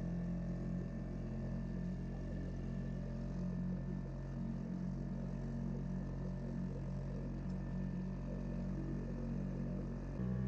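Steady drone of a small boat's motor as the kayak catamaran runs under way, with water rushing along the hulls; the drone changes abruptly near the end.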